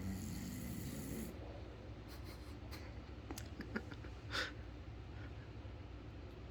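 Snoring: slow, noisy sleep breathing, with a louder breath at the start, a few faint clicks, and a short, sharp noisy breath about four seconds in.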